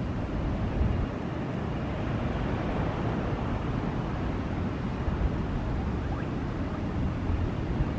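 Steady rumble of a jet airliner's engines as an Airbus A320 rolls out on a wet, spray-covered runway after landing.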